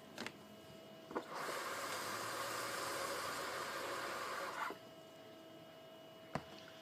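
Water running from a tap into a clear plastic container for about three seconds, starting about a second in and stopping sharply. A few small knocks come before and after it.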